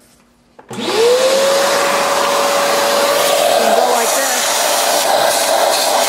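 Shop vacuum switched on about a second in, its motor whining up to speed within a fraction of a second and then running steadily with a loud rush of suction.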